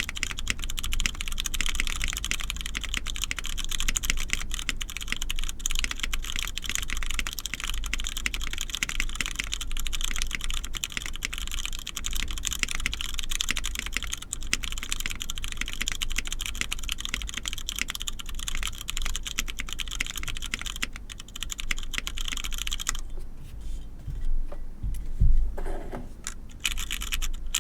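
Typing on an Ori-Club CLS-2 mechanical keyboard with an aluminium plate, diamond-polished Cherry MX Brown switches lubed with Krytox 205g0, and Zenclack keycaps. Fast, continuous keystrokes thin out near the end to a few separate presses, including one louder, deeper stroke, then resume quickly.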